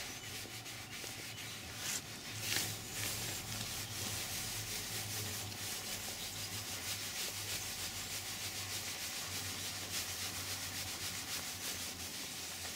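A damp sponge scrubbed in steady circles over a leather car seat, working leather cleaner into the hide to lift ingrained dirt, with a couple of slightly harder strokes a few seconds in.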